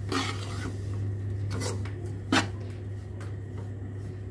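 Steel slotted spoon scraping and stirring a dry grated coconut and nut mixture in a steel karahi, in repeated rasping strokes, with one sharp metal clink about two seconds in. A steady low hum runs underneath.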